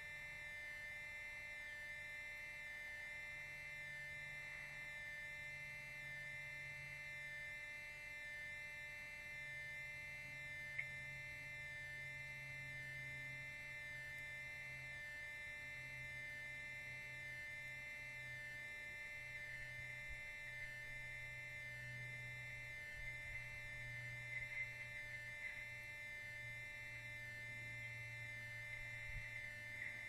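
Steady electrical hum and high whine from the nest camera's audio, with a few faint ticks.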